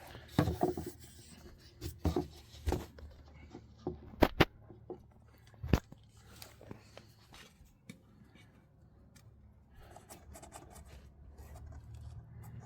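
Sharp knocks and scrapes of wood being handled: six or so distinct knocks in the first six seconds, two close together about four seconds in, then softer scraping and rubbing, as a glued wooden infill piece is worked into a board.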